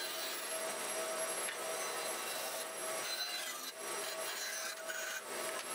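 A bandsaw cutting curves out of a walnut board: the blade runs steadily through the wood, with a faint whine from the running saw.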